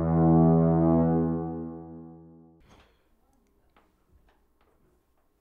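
A single sustained low musical tone from the film's score, rich in overtones, swelling and then fading before it stops abruptly about two and a half seconds in. After it there are only a few faint small clicks.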